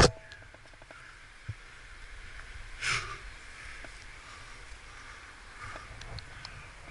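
A rock climber's movement noises: a few faint metallic clinks of climbing gear at the start, then one brief scraping rush about three seconds in, over a steady low outdoor hiss.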